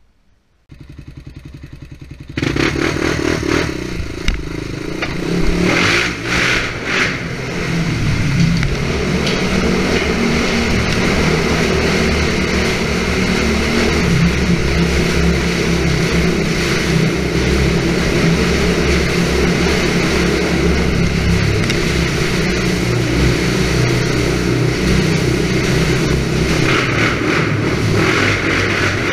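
ATV engine running. It idles with an even pulse for a couple of seconds, then gets much louder and runs hard under throttle for the rest, with rattling and wind noise over it.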